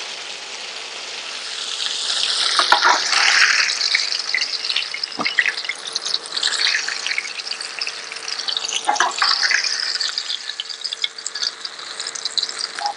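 Battered sea bass pieces deep-frying in hot oil in a steel wok, the frying that makes the fish crispy. The sizzle is steady and grows louder about two seconds in, and a metal ladle scrapes and knocks against the wok a few times as the pieces are stirred and lifted.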